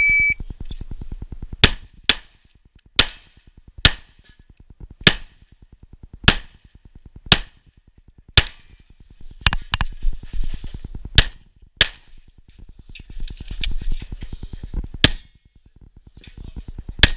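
A shot timer's start beep, then a .38 Super STI Trojan single-stack 1911-style pistol firing about a dozen shots at uneven spacing, some in quick pairs and some with pauses of a second or more between them.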